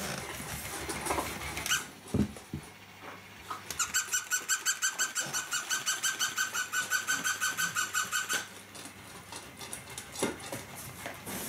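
Plush walking toy dog's electronic bark: a fast run of identical high-pitched yips, about five a second, lasting roughly four seconds from around the middle.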